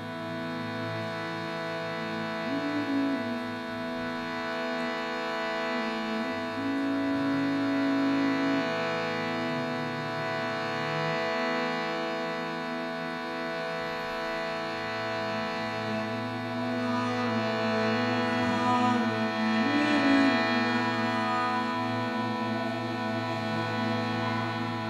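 Harmonium playing a dense, sustained drone chord, with a few slow, held melody notes stepping up and down over it, swelling gently a couple of times.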